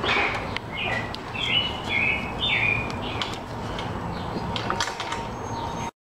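A bird chirping: a run of short calls, several dropping in pitch, over the first three seconds. Scattered light clicks and knocks run through it.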